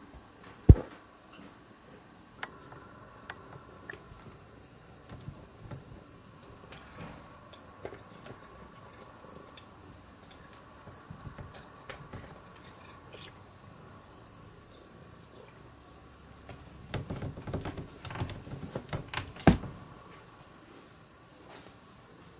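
Sliding fusuma door knocked and rattled in its frame as a cat paws at it through the gap: one sharp knock about a second in, scattered small taps, and a quick flurry of knocks and rattles near the end. A steady, finely pulsing high hiss runs underneath.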